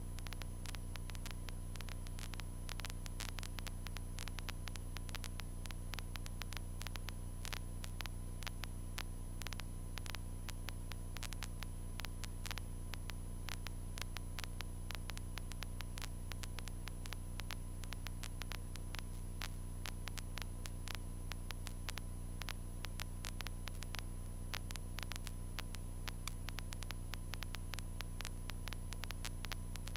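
Steady low hum with constant fine crackling static, as heard on the intercom audio feed of a Cessna 152 in flight, the cockpit noise muted by the headset's microphone.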